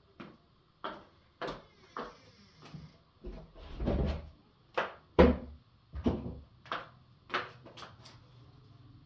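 A series of about a dozen irregular knocks and clunks, like things being set down and handled, loudest near the middle.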